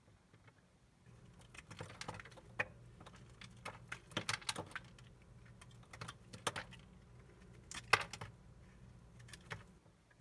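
Dry soap crackling and cracking as it is worked, a run of irregular crisp clicks that starts about a second in, is loudest around the middle and near the end, and stops just before the end.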